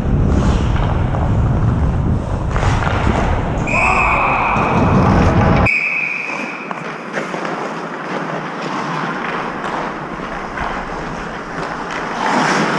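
Low rumbling movement and wind noise on a helmet-mounted camera in an ice rink, with a referee's whistle blown for about two seconds near the middle. Just after the whistle the rumble cuts off abruptly, leaving quieter rink ambience.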